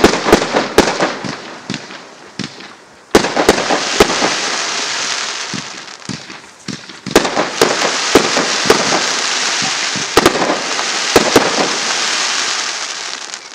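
A 40-shot palm-effect firework cake (Whispering Palms barrage) firing. Sharp bangs come in clusters, each break followed by a long dense hiss as the stars burn, which dies away near the end.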